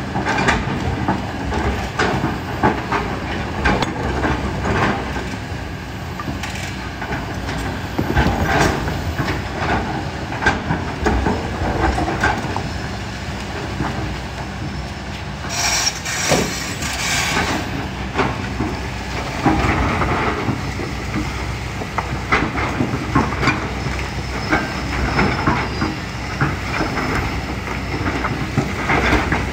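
Kobelco SK200 excavator's diesel engine running under load, with frequent knocks and clatter of rock and gravel against the bucket. A hiss lasting about two seconds comes a little past the middle.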